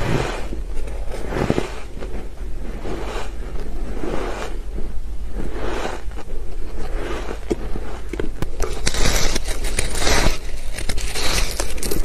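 Close-miked chewing of soft, powdery shaved ice, a soft crunch about once a second. The crunches come faster and crisper in the last few seconds.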